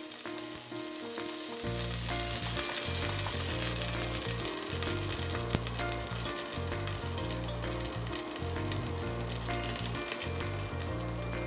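Melted fat sizzling in a hot stainless steel pot: a steady frying hiss of small bubbles, the fat heating before garlic goes in to sauté.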